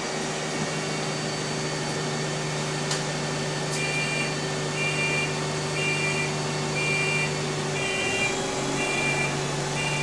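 Bus idling with a steady low hum. From about four seconds in, a two-tone electronic beep repeats about once every three-quarters of a second.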